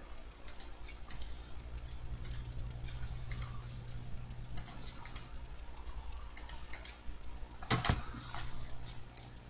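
Scattered light clicks of a computer mouse and keyboard at a desk, with one louder knock near the end, over a steady low electrical hum.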